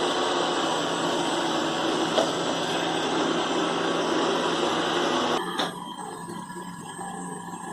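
Roomba 675 robot vacuum running, a steady whir and hiss of its vacuum motor and brushes. About five seconds in the sound drops abruptly with a click, leaving a quieter hum.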